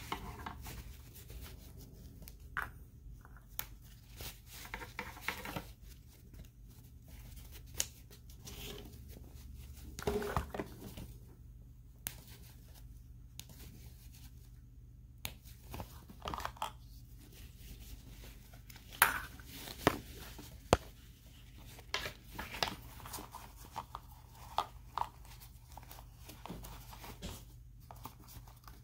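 Rustling cloth and light knocks of plastic limbs as a small jacket is worked onto a 12-inch action figure, with scattered sharp clicks; the loudest three come close together about two-thirds of the way through.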